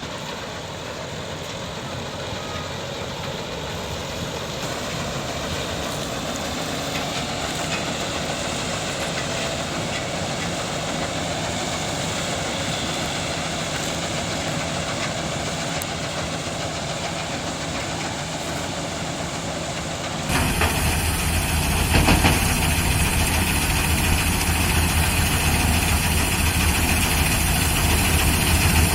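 Engine of a heavy harvesting machine running steadily, growing slowly louder, then abruptly louder and deeper about twenty seconds in.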